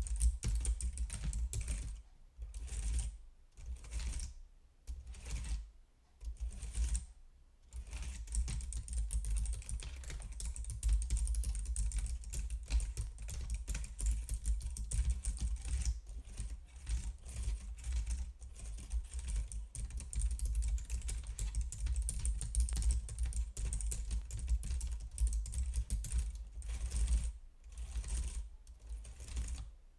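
Typing on a computer keyboard: fast, dense keystroke clicks, broken by a few short pauses in the first several seconds and again near the end.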